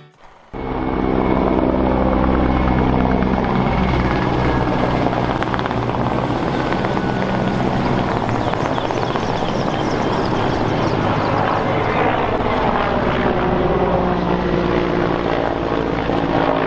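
An aircraft overhead, its engine a steady drone with a deep hum beneath, starting just after a sudden cut in the sound.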